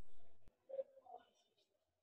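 Faint room noise and hum from an open microphone on a video call, cut off abruptly about half a second in, as when a participant mutes or noise suppression closes. Two faint, brief murmurs follow, then dead silence.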